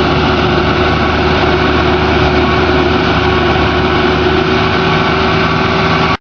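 Heavy road-construction machinery's diesel engine running steadily under load, with an even mechanical noise over it; it cuts off suddenly near the end.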